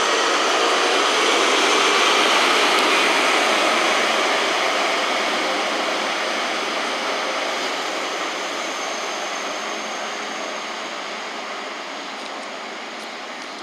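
A train passing at speed, a loud rushing roar that peaks about two seconds in and then fades steadily as the train draws away.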